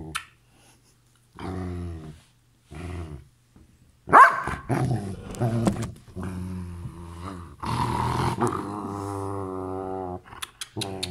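A Belgian Malinois grumbling and growling in a run of low, drawn-out vocal notes, each a second or longer with short pauses between them, with a louder, sharper outburst about four seconds in. This is an attention-seeking grumble, the dog demanding kisses rather than threatening.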